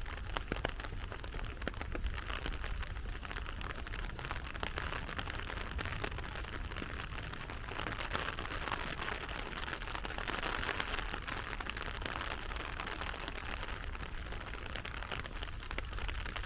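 Heavy rain falling steadily, with many raindrops pattering close by over an even rush.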